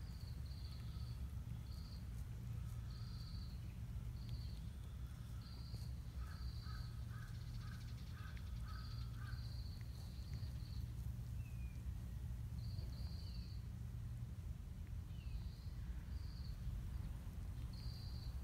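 Outdoor park ambience: birds calling, with short high chirps repeating throughout and a run of about seven short calls, roughly two a second, in the middle, over a steady low rumble.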